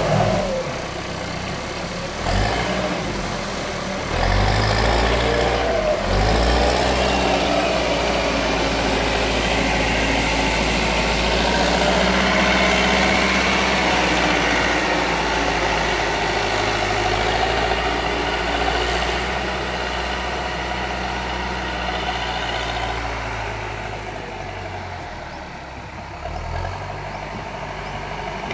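Diesel engine of a JCB backhoe loader running under varying load, getting louder about four seconds in and easing off before picking up again near the end.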